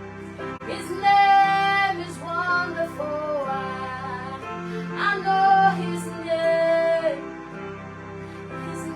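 Gospel worship song: a singing voice holds long notes over steady, sustained instrumental backing.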